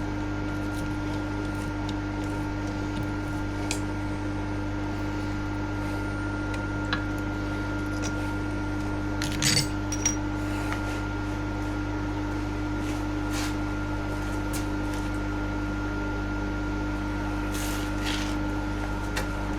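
Milling machine running steadily with an even, pitched motor hum, with a few light metallic clicks and a short clatter about halfway through.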